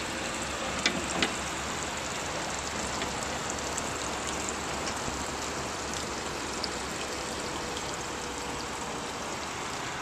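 Steady hiss throughout, with two light clicks about a second in as the round plastic bilge access hatch cover in the aluminium deck is handled.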